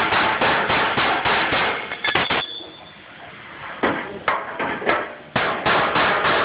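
Hammer blows on the steel of a handmade car bumper, about three sharp strikes a second. They break off a little over two seconds in, leaving a few scattered strikes, and resume about five and a half seconds in.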